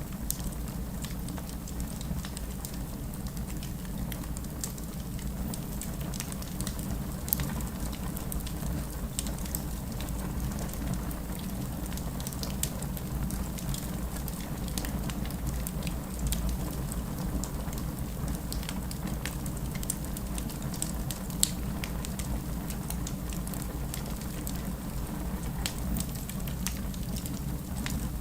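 Wood fire crackling over a steady low rumble, with many small scattered pops and two sharper ones, about seven seconds in and about twenty-one seconds in.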